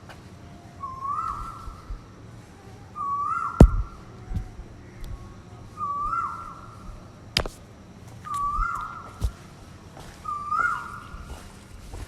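An Asian koel (koyal) calling: five similar rising whistled notes, one every two to three seconds. Two sharp clicks stand out as the loudest sounds.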